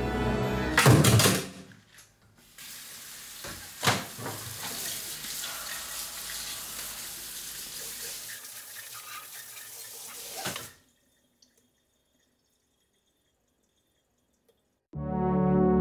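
Kitchen tap running hard onto a muffin tin in a stainless steel sink for about eight seconds, with a knock of the tin about a second in, then cut off suddenly. Before it, music ends on a loud hit; new music with low brass comes in near the end.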